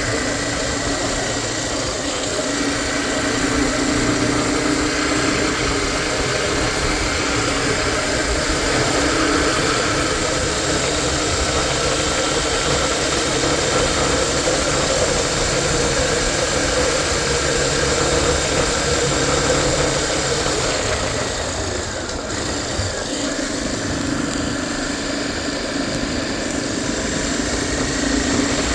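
Engine of a Tornado 250 motorcycle running steadily at a constant speed, dipping slightly in level about 22 seconds in.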